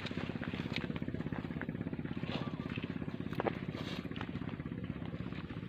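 An engine idling steadily with a fast, even low pulsing, with a few faint clicks or chirps over it.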